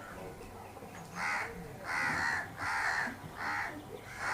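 Crow cawing five times in a steady series of loud, harsh calls, starting about a second in.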